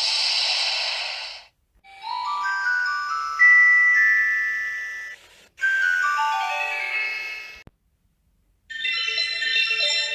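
Samsung mobile phone jingles: short chime-like electronic melodies in bell and mallet tones, played one after another with brief silences between. One phrase fades out about a second and a half in, and three more short tunes follow.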